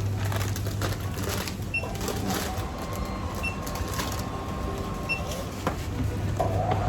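A steady low hum with scattered clicks and knocks, and a short high electronic beep three times, evenly spaced.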